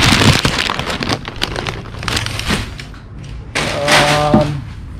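Crumpled packing paper rustling and crackling as it is handled and pulled out of a cardboard box. A brief pitched sound stands out about four seconds in.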